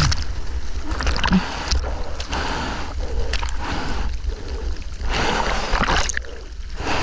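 Water splashing and sloshing close to a waterproof action camera in the surf, in repeated splashes about once a second over a steady low rumble of water and wind on the microphone.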